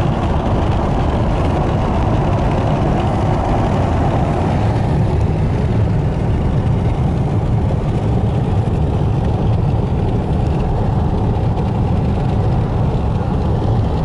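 Steady low rumble of a car driving on an open road, heard from inside the cabin: tyre and engine noise with no changes.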